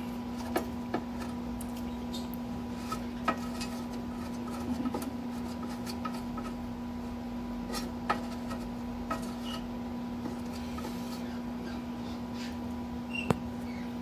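Steady hum with a few scattered small clicks and taps as pieces of burrito are handled on a metal toaster-oven baking tray.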